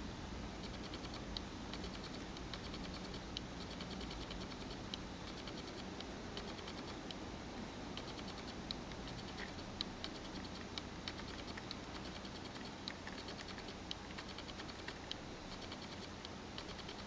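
Light ticks and taps of a fingertip flicking and tapping across a smartphone's glass touchscreen while scrolling a list, coming in quick little clusters over a steady low hum.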